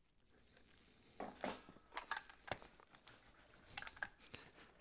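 Irregular clicks, taps and scrapes of handling on plastic floor grating as a hot glue gun is set down and a small hand tool picked up, starting about a second in.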